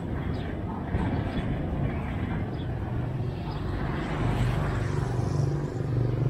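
A motor vehicle's engine running close by, its steady drone growing louder near the end as it approaches.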